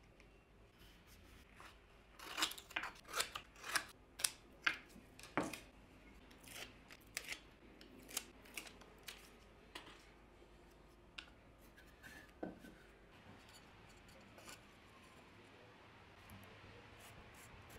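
Double-sided tape and a laser-cut plywood template being handled on a wooden workbench: a quick run of about eight sharp clicks between two and six seconds in, then scattered lighter clicks and rubbing as the template is pressed down.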